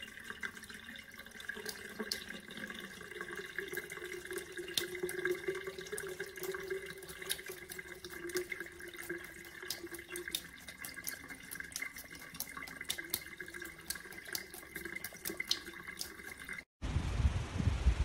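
Kitchen tap running a thin stream into a ceramic sink: steady splashing with many small ticks. Near the end it cuts suddenly to a louder low rumble.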